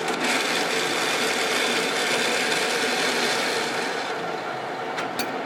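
Timemaster/Gurutzpe Super M 300/4000 gap bed engine lathe running under power rapid traverse: a steady mechanical whir of the spindle drive, gearing and traverse motor. The higher hiss drops off about four seconds in, and two short clicks follow near the end.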